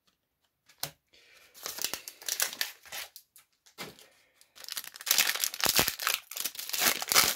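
Foil Pokémon booster pack wrapper crinkling and tearing as it is ripped open by hand, in irregular bursts that get louder and denser over the last couple of seconds.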